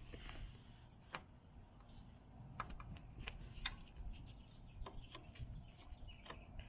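Faint, irregular clicks and taps of a hand tool on metal, working at a stubborn fastener on a motorbike carburetor that will not come loose.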